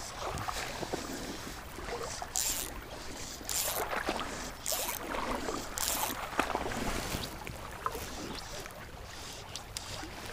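River water lapping and sloshing close to the microphone around a wading angler, with several short hissing rushes about a second apart in the middle.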